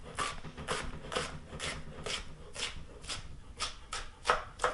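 Chef's knife dicing an onion on a wooden cutting board: a steady run of knocks of the blade on the board, about two a second.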